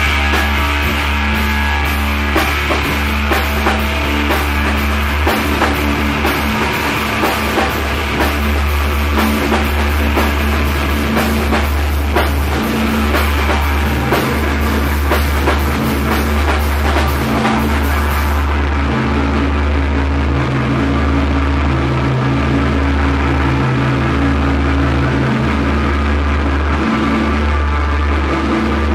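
Loud heavy psychedelic rock playing, with a drum kit and a steady, droning bass. About eighteen seconds in, the bright, hissy top of the sound falls away, leaving the bass and mid-range instruments.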